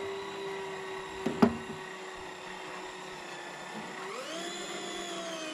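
Electric deep-drop fishing reel's motor whining steadily as it winds in line against the pull of a hooked shark; about four seconds in the whine jumps higher and then slowly sinks. A single sharp knock about a second and a half in.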